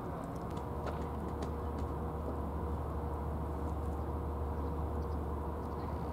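Steady low rumble of outdoor background noise with a faint constant hum, and a few soft clicks in the first two seconds.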